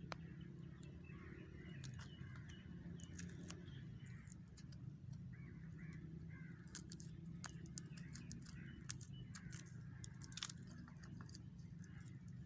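Crows cawing faintly, several separate calls, with scattered sharp clicks and a steady low rumble underneath.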